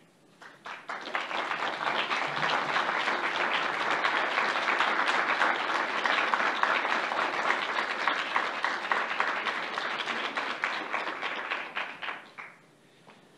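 Audience applauding: the clapping swells about a second in, holds steady, and dies away near the end.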